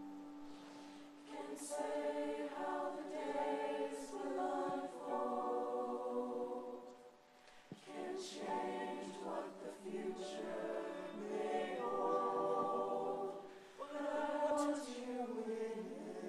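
Show choir singing softly in sustained harmony, in long phrases with short breaks between them, about a second, seven and a half seconds, and fourteen seconds in.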